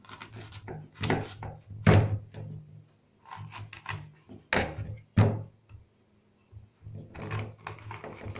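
Kitchen knife cutting through the thick husk of a ripe cocoa pod, the blade knocking against the wooden tray beneath in a series of irregular thunks. The loudest knocks come about two seconds in and around five seconds in.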